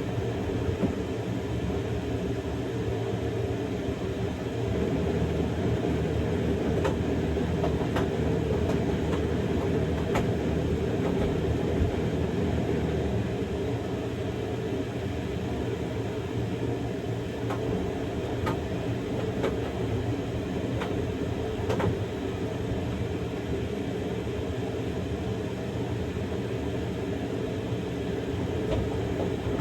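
Samsung Grande drum washing machine running its quick-wash cycle with a padded jacket inside: a steady rumble and motor hum from the turning drum, with a few faint clicks.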